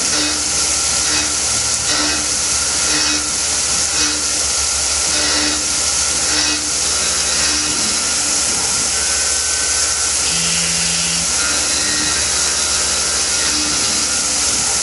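Tormach PCNC 1100 CNC mill roughing pockets in a 6061 aluminium soft jaw with a 3/8-inch carbide end mill at 4000 RPM, under flood coolant. There is a steady spray hiss over the hum of the spindle, with short low tones repeating about every half second.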